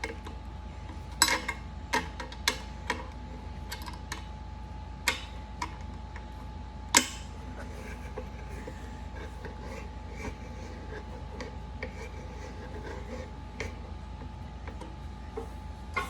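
Irregular clicks, clinks and knocks of metal stand parts and hardware being handled and fitted together, about eight in the first seven seconds and fainter ones after that. A faint steady hum runs underneath.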